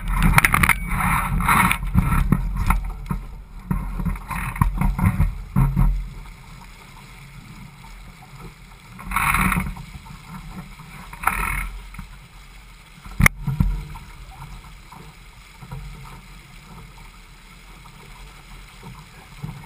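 Water rushing and splashing against the hull of a Laser 4000 sailing dinghy under way, with a low rumble. It is busy for the first several seconds, then settles to a quieter wash with two short splashes and a single sharp knock on the boat about 13 seconds in.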